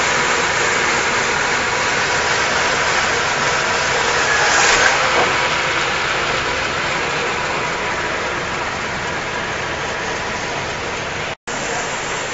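Band sawmill with 42-inch saw wheels running and cutting a large hardwood log: a steady, loud machine noise with a faint hum, swelling briefly a little under five seconds in. The sound drops out for an instant near the end.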